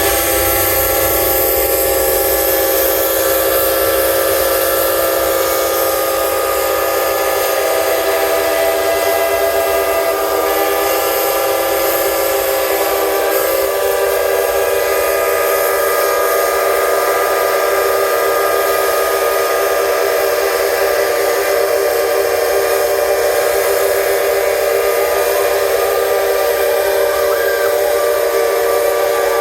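Many steam traction engine whistles blowing at once, a loud, continuous chord of many steady pitches layered over one another, with steam hissing.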